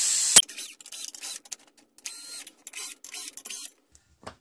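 Compressed air hissing out through the valve of a homemade resin-casting pressure tank as it is drained, stopping with a sharp click less than half a second in. Fainter broken spurts of hiss and rattle follow, with a short click near the end.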